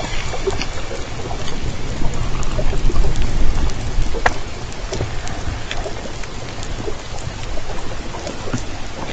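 Underwater hydrophone sound of J Pod southern resident killer whales: a low rumble under a crackle of scattered sharp clicks, with one stronger click about four seconds in and no clear call.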